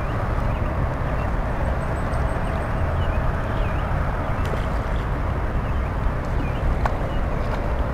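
Steady outdoor background noise, a low rumble under a hiss, with a few faint short chirps scattered through and a faint high trill about two seconds in.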